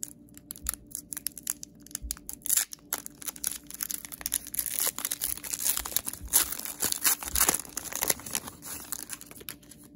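Foil wrapper of a Pokémon trading-card booster pack crinkling and tearing as it is ripped open by hand and the cards are slid out, in dense irregular crackles.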